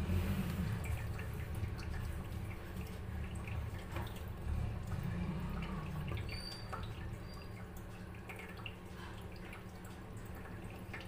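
Nimona, a green pea curry, simmering in a kadai: scattered small pops and plops of bursting bubbles over a low rumble.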